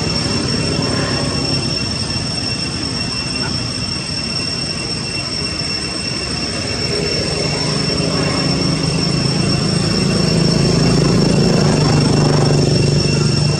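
A low motor-vehicle drone, growing louder in the second half, over steady background noise with an unbroken high-pitched whine.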